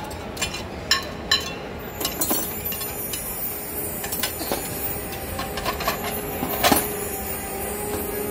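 Scattered clinks of glassware and cutlery at dinner tables, a handful of sharp separate clinks, the loudest near the end, over a low room murmur with a faint steady tone coming in after about two seconds.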